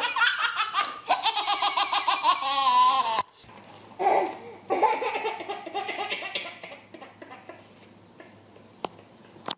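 A baby belly laughing hard in quick, pulsing bursts; about three seconds in it cuts off abruptly and another baby laughs more softly in short bursts, fading out near the end.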